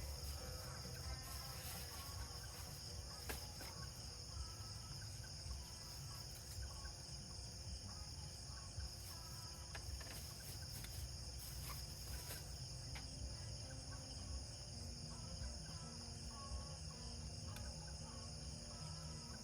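A steady, high-pitched chorus of insects droning without a break, over a low rumble.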